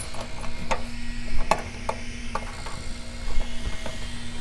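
Scattered light metallic clicks and clinks of a bolt and a metal tie-down ring being threaded in by hand, over a faint steady hum.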